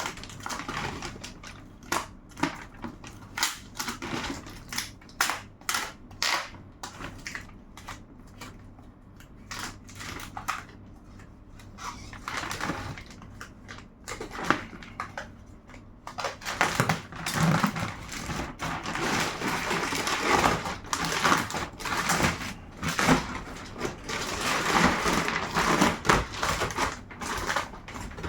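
Plastic packaging of a tote bed being handled and opened: scattered crinkles and clicks at first, turning to denser, continuous crinkling and rustling about halfway through.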